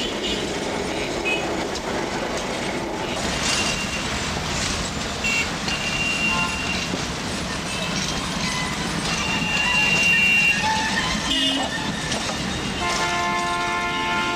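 Busy street traffic with vehicle horns tooting several times over a dense background of engines and road noise. Near the end a steady chord of several held tones comes in.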